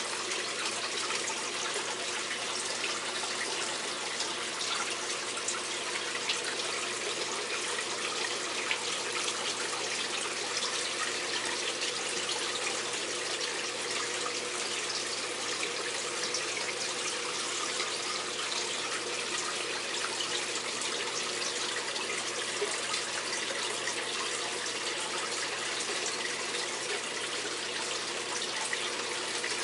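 Steady rush of running water in a turtle tank, like a filter or pump outflow, with a faint steady hum underneath.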